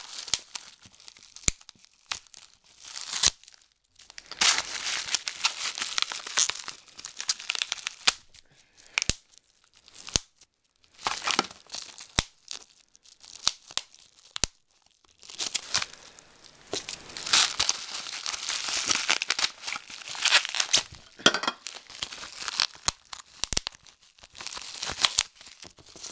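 Bubble wrap and plastic packaging crinkling and tearing in irregular bursts as an item is unwrapped by hand, with a few sharp clicks and short pauses between handlings.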